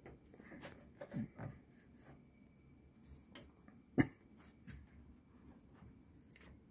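Faint handling noises of fingers checking the hose clamps and red coolant hoses inside a TIG welder's water cooler: small scattered clicks and rubs, with one sharp click about four seconds in.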